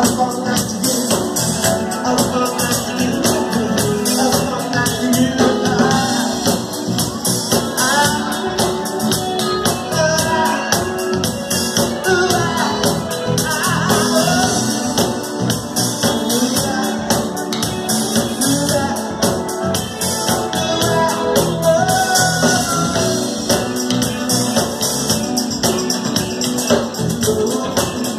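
Live band playing a song: steady percussion under a sung vocal line.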